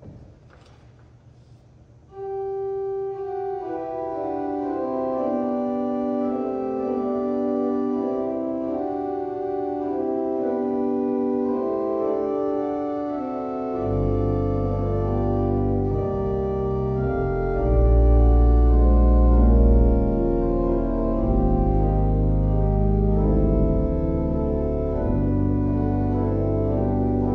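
Church organ playing slow, held chords. It comes in about two seconds in, and deep bass notes join about halfway through, loudest a few seconds later.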